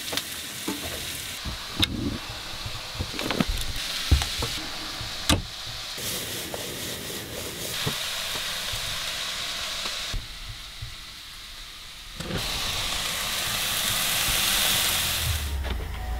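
Vegetables sizzling as they fry in a pan on a gas hob, with a knife tapping through mushrooms onto a wooden chopping board during the first five seconds. The sizzle gets louder about twelve seconds in.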